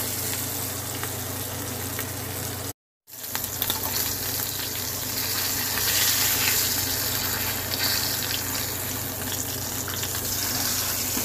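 Ribeye steak sizzling in hot butter in a cast-iron skillet, a steady frying hiss. The sound cuts out completely for a moment just under three seconds in.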